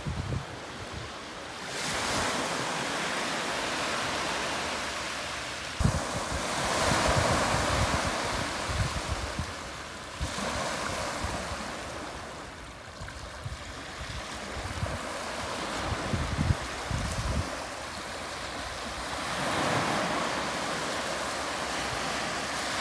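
Small waves washing up a sandy beach and drawing back, the hiss swelling and fading every few seconds. Gusts of wind buffet the microphone several times with a low rumble.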